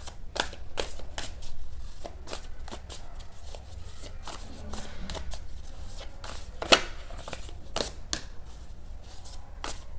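Tarot cards being shuffled by hand: irregular, crisp card snaps and riffles, several a second, with one louder snap about two-thirds of the way through.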